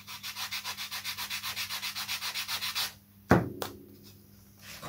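A small piece of wood being rubbed on a hand sanding block in quick, even back-and-forth strokes for about three seconds, shaping a thicker piece of wood to carry the rudder hinge. Then two sharp knocks.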